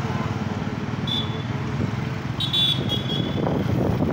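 Busy road traffic: motorcycle and bus engines running. A short high-pitched horn toot sounds about a second in and a longer one near the middle. The engine rumble gets louder toward the end.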